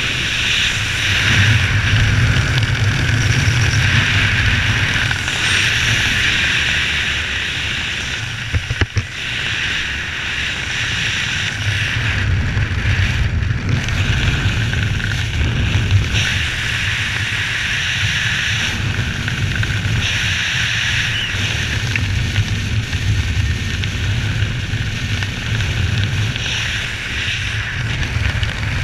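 Steady wind rushing over the camera's microphone while descending under an open parachute canopy, with a brief dip in level about nine seconds in.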